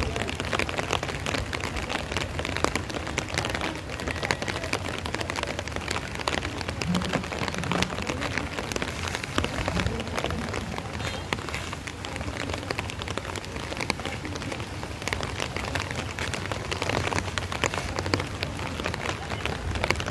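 Steady rain falling, with a dense patter of drops.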